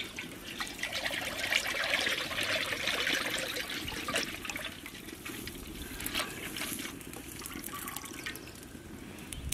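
Cooking oil poured in a stream from a steel pot into a large iron kadai, splashing into the oil already pooled in the pan. The pour is fullest in the first few seconds, then thins to a quieter trickle.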